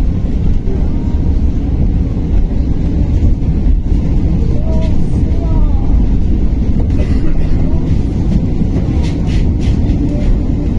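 Steady low rumble of road and running noise inside a moving KamAZ-6282 battery-electric city bus.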